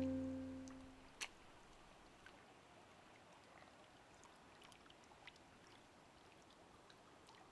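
Acoustic guitar music fading out as a song ends, then near silence: a faint steady hiss with a few small clicks.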